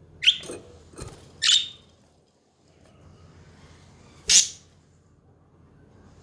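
Pet budgerigars giving a few short, separate chirps, with a small click about a second in; the loudest call is a sharp, hissy squawk a little past four seconds.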